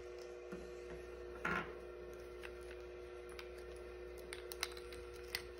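Light clicks and taps of small plastic Mighty Beanz beans and their capsules being handled, with one louder rattle about one and a half seconds in, over a steady hum.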